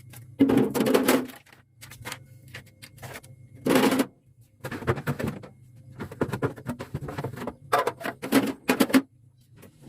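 Irregular clattering and scraping as items and parts are handled and moved while a refrigerator is cleaned out, in several loud bursts with lighter clicks between them, over a steady low hum.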